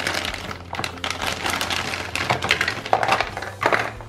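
Thin clear plastic bag crinkling and crackling as it is handled and pulled open around plastic toy pieces, with a few louder crackles near the end.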